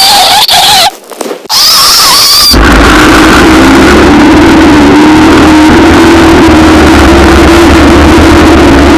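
Short, wavering high-pitched squeals, then from about two and a half seconds in a loud, steady engine-like running noise with a deep rumble and a held drone.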